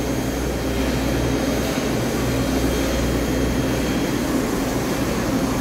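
Departing diesel-and-steam special train: a steady low engine drone with an even rushing hiss over it.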